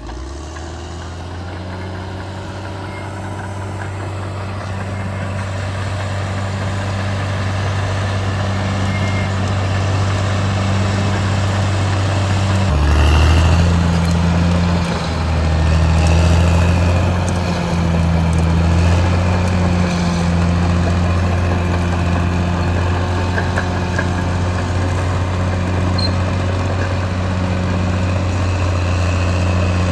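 Caterpillar D6R XL bulldozer's diesel engine running steadily, growing louder over the first dozen seconds, then a deeper, louder rumble from about halfway through that holds to the end.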